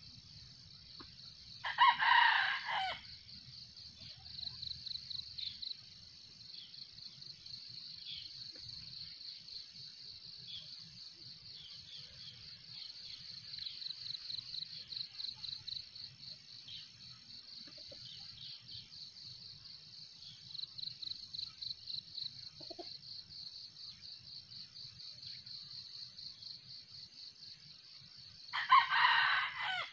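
Red junglefowl rooster crowing twice, short crows of about a second each, one near the start and one near the end. A steady, pulsing high insect trill runs underneath.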